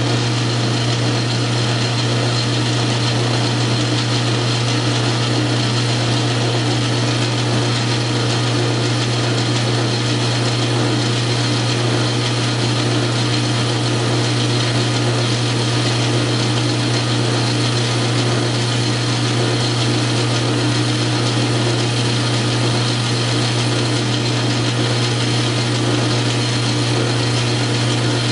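South Bend metal lathe running steadily under power feed, taking a light truing cut on bar stock: a constant hum with even cutting noise.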